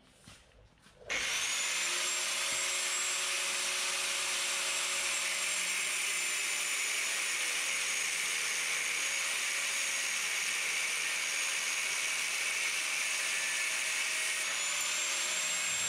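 Corded angle grinder starting up about a second in and grinding steadily along the metal edge of a door, a loud, even high whine that drops a little in pitch partway through and climbs back near the end.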